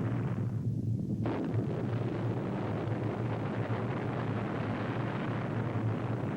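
Steady rumbling roar of a massive detonation. Its higher part drops away briefly from about half a second in and comes back just after a second in.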